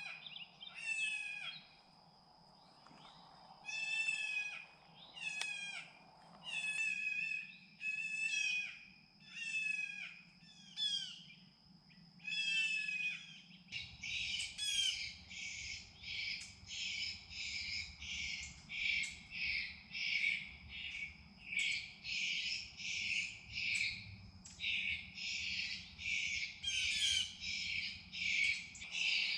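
Electronic predator caller playing a fawn distress sound: a pitched, bleat-like call repeated about once a second. About fourteen seconds in, the calls turn faster and denser, about two a second, over a faint low rumble.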